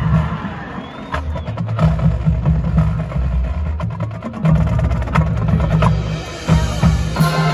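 High school marching band performing: sharp percussion strikes, wood-block-like clicks and drum hits, over sustained low notes, with a fuller held chord entering near the end.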